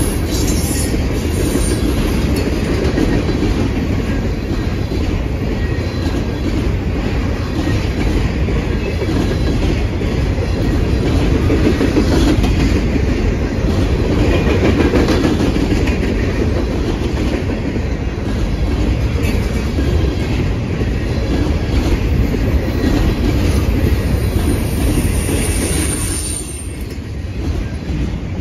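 Freight train cars loaded with containers rolling past close by: a steady rumble of steel wheels with a clickety-clack over the rail joints. A thin high wheel squeal comes in near the start and again near the end, and the rumble eases briefly just before the end.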